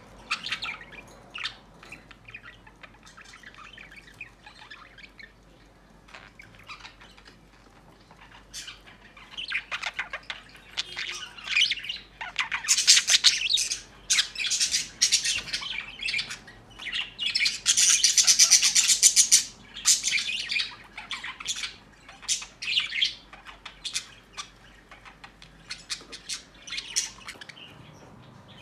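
A bird calling over and over with harsh squawks and chirps, sparse at first and then a dense run of loud calls in the middle, including one long harsh call.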